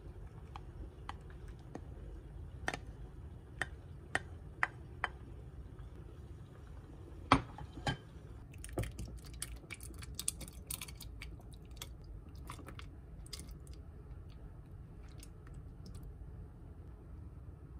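Light clicks and knocks of a spoon against a saucepan and a ceramic ramekin as thick cooked fruit is scraped out, the loudest knock about seven seconds in. This is followed by a quicker run of crisp little clicks and a few scattered taps as chopped fruit is spooned into glass containers.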